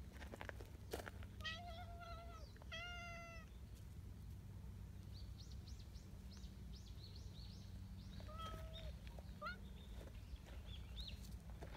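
Cat meowing: two short meows in quick succession about a second and a half in, and another near the end.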